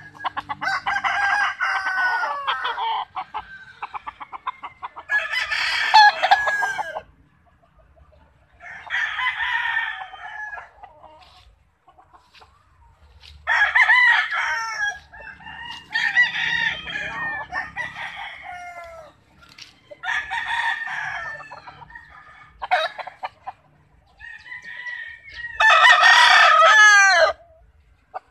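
Gamefowl roosters crowing again and again, with short pauses and some clucking between the crows. The loudest crow comes near the end.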